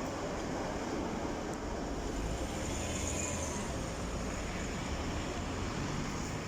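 A train running by, a steady rumble with rail noise.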